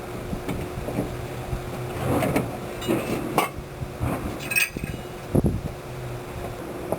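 Irregular knocks, clicks and light metallic clinks of hands-on work with tools and parts, over a steady low hum.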